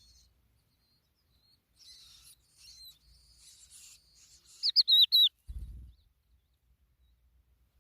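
Skylark chirping: soft, high twittering notes, then a quick run of about four loud, sharp chirps in the middle. A short, dull low thump follows just after them.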